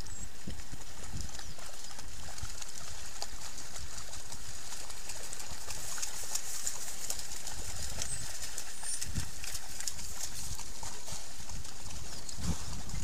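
African wild dogs wading and splashing through shallow floodwater: irregular splashes and sloshing steps, with a few short high chirps about eight and nine seconds in and a louder thud near the end.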